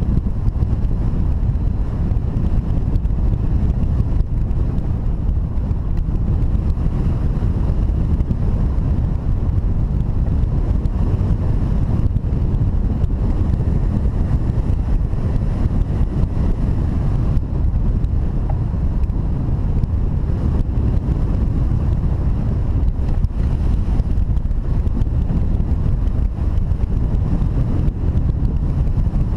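Steady wind buffeting the microphone: an unbroken low rumble that holds at the same level throughout.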